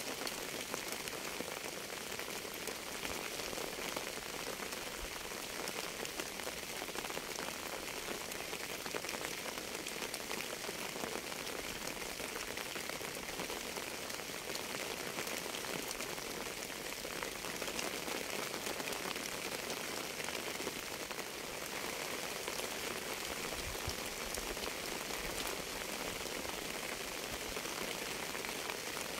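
Steady rain: an even hiss of many drops with fine scattered drop ticks, holding at one level throughout.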